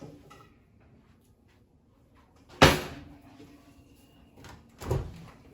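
Two thuds like a cabinet or appliance door being shut: a sharp loud one about two and a half seconds in, and a softer one near the end, with a few faint clicks between them.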